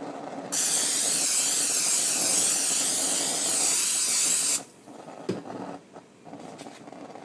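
Aerosol can of nonstick cooking spray sprayed in one steady hiss of about four seconds, starting about half a second in and cutting off suddenly. A faint knock follows.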